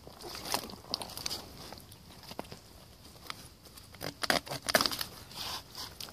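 Wet mud squelching and crackling as rubber waders and a gloved hand move through it, with a dense run of louder squelches about four seconds in while the hand digs.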